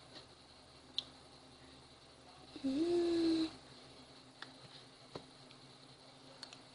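A short, steady hummed 'mmm' of a voice, lasting about a second, with a few faint clicks of a spoon against a plastic yogurt pot.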